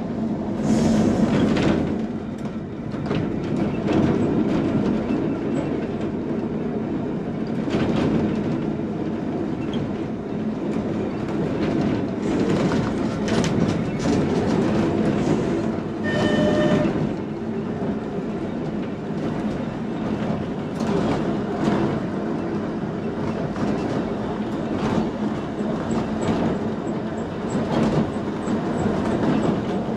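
Vintage Manx Electric Railway electric tramcar running along the track, heard from the motorman's platform: a steady rumble of wheels on rail with irregular clicks and rattles over the joints. A short high-pitched tone sounds briefly about halfway through.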